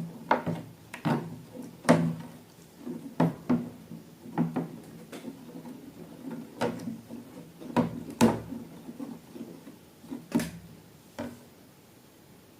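Irregular knocks and clicks from objects being handled and set down on a hard surface, about a dozen of them, some with a short low ring; they thin out and stop near the end.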